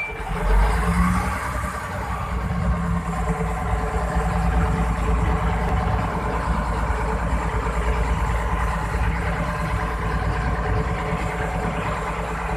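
A fishing boat's engine running steadily with a deep, even drone that comes up about half a second in, over a haze of wind and rough-sea noise.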